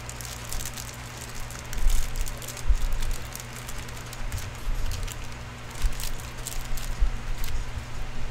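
Scattered light clicks and crackles of handling, irregular and close, over a steady low electrical hum.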